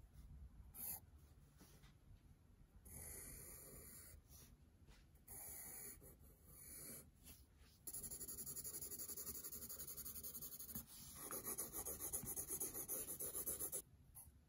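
Wooden graphite pencil drawing on paper: short separate strokes scratching across the sheet, then from about halfway a louder, continuous run of fast back-and-forth shading strokes that stops shortly before the end.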